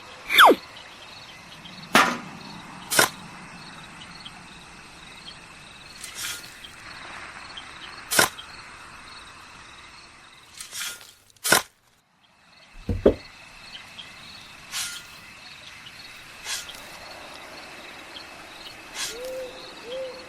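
Steady cricket-like chirring behind a series of short, sharp swishes and clicks spaced a second or two apart. A brief falling whistle comes at the start and two more come near the end, and the background cuts out for about a second in the middle.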